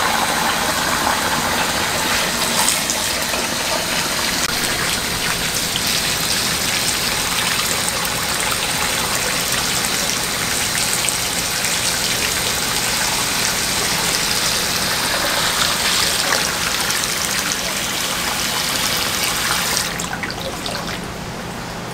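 Water gushing from a hose into a cast-iron cauldron of whole raw chickens, filling it in a steady splashing rush. The gushing drops off near the end.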